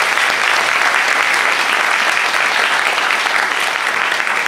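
A large audience applauding: steady clapping from many hands at once.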